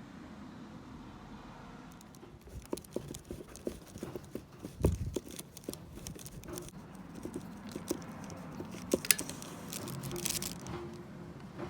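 Tools and parts being handled during a scooter oil change: irregular clicks, clinks and knocks, with a heavier thump about five seconds in and a sharp click near the end.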